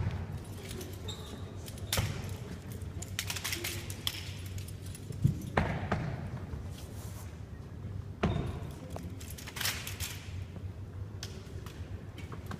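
Scattered knocks and thuds, a few seconds apart, over a steady low background noise.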